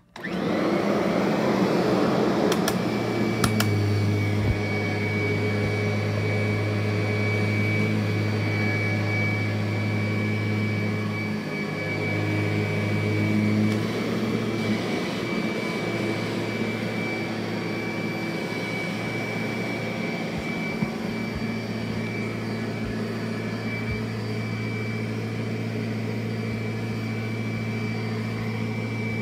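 Kirby Sentria II upright vacuum cleaner switched on, its motor spinning up within about a second and then running steadily with a high whine as it is pushed over carpet picking up sand and cat hair. A few sharp ticks a few seconds in.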